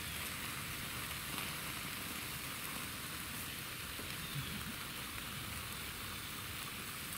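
Steady outdoor hiss with a low rumble underneath, and a couple of faint taps about one and four seconds in.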